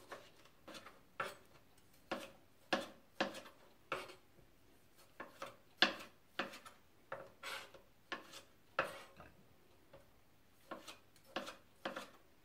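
Chef's knife cutting cherry tomatoes on a plastic cutting board: short, irregular knocks of the blade striking the board, about one or two a second, with a brief pause a little past the middle.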